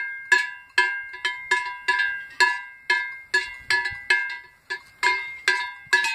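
A large bell hung from a grazing cow's neck, clanging unevenly at about three strikes a second as the cow moves its head, each strike ringing on briefly.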